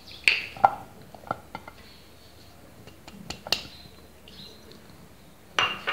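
Cubes of butter dropping from a small dish into a glazed clay bowl: a handful of light knocks and clicks spread through the first few seconds, with a louder clatter near the end.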